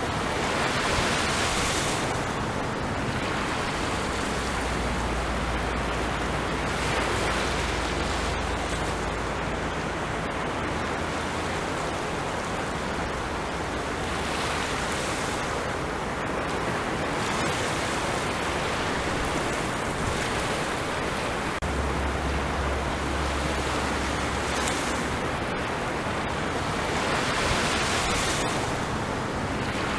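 Ocean waves washing onto a shore: a steady rushing surf that swells louder a few times as waves break.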